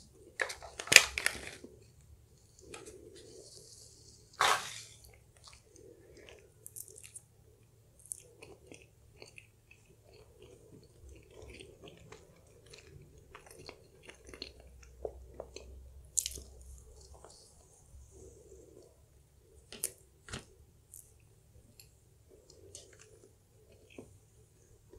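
Close-miked eating sounds of a person spooning up and chewing soft chocolate lava cake: wet chewing and lip smacks. A few sharp clicks and smacks stand out, the loudest about a second in and another near four and a half seconds.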